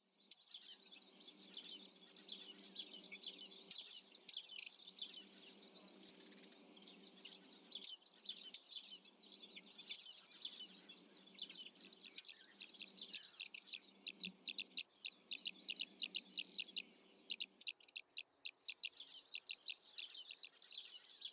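Small birds chirping and twittering in a dense, rapid chorus of short high notes, over a faint low hum that stops near the end.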